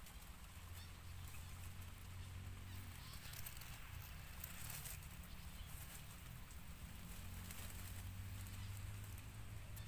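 Faint rustling and crackling of dry leaves and twigs as a hand sets a wire snare on the ground, busiest around the middle, over a low steady hum.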